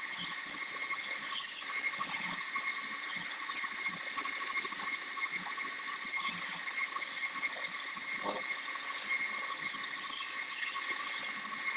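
Wood lathe running with a steady whine, while a turning tool cuts the spinning wooden blank in irregular scraping strokes.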